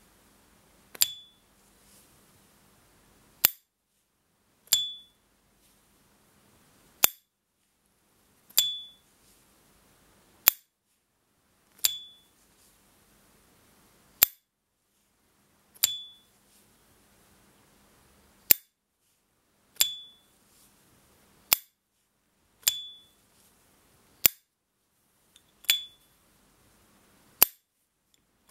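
A 1990 S. T. Dupont Ligne Gatsby lighter's lid flipped open with its high ringing ping and snapped shut with a short dry click. This happens about eight times over, one open-and-close every three to four seconds.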